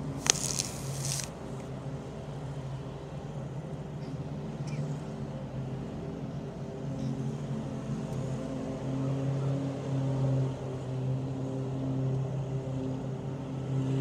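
Lawnmower engine running steadily with a low drone that grows somewhat louder in the second half. A sharp click and a brief hiss come right at the start.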